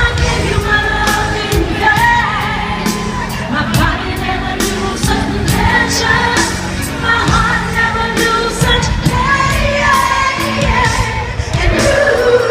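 Live freestyle pop performance: a female lead vocal sung over a band or backing track with a steady drum beat.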